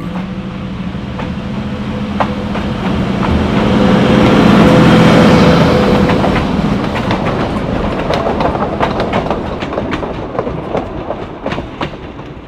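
Diesel locomotive hauling a passenger train past at close range: the engine's steady running swells to its loudest as the locomotive goes by about five seconds in. The train then fades as its carriages roll past, wheels clacking on the rails.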